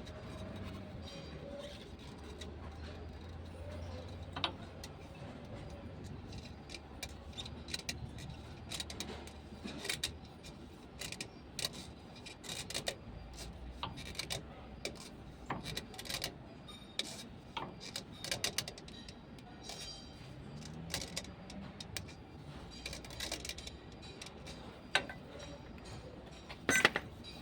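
Irregular metallic clicks, taps and clinks of hands and tools on the bus's air dryer assembly as a new spin-on air dryer filter cartridge is fitted and tightened with a strap wrench, with a sharper cluster of knocks near the end.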